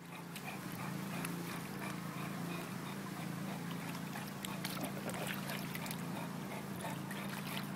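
English bulldog's noisy breathing as it clambers along a foam pool float, with small water splashes and drips. A steady low hum runs underneath.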